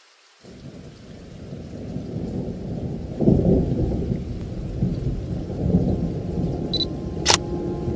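Thunderstorm: a low rumble of thunder and rain that swells after about half a second, with a louder roll of thunder about three seconds in. Near the end a sharp click sounds and a held musical note begins.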